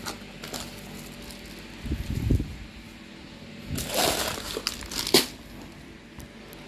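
Plastic grocery packaging and a shopping bag rustling and crinkling as items are lifted out by hand. There is a low bump about two seconds in and a sharp knock a little after five seconds, the loudest moment.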